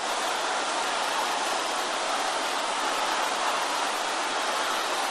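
A large congregation praying aloud all at once, their many voices blending into a steady, even wash of sound with no single voice standing out.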